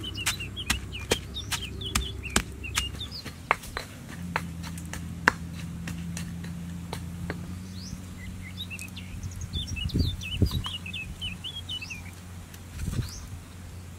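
Stone pestle pounding in a stone mortar, a sharp knock about twice a second, thinning after a few seconds to scattered knife chops. Small birds chirp over it, most in a run in the second half.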